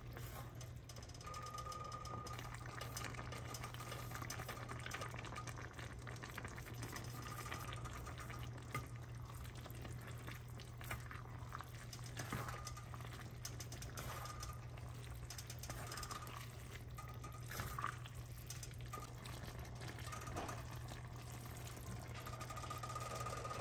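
Spaghetti simmering in a brothy tomato sauce in an enamelled cast-iron pot, stirred and tossed with wooden chopsticks, with scattered soft clicks of the chopsticks against the pot. A steady low hum runs underneath.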